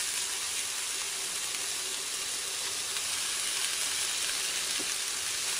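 Shrimp and diced onion sizzling steadily in hot oil in a frying pan.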